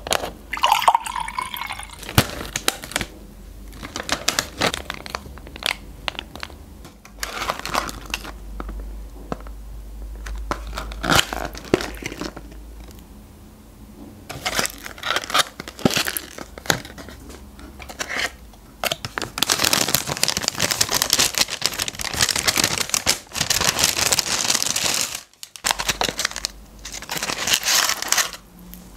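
Brown paper takeaway bag rustling and crinkling, with cardboard food boxes and a juice carton handled and set down on a foil-covered tabletop: many sharp taps and clicks between spells of rustling, the longest and loudest rustling about two-thirds of the way through.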